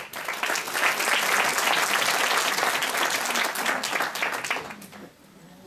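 Applause, many people clapping, which dies away about five seconds in.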